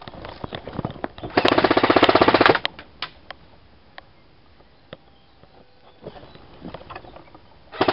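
An airsoft rifle firing one full-auto burst of a bit over a second: a rapid, even stutter of shots. Scattered single clicks and rustling come before and after it.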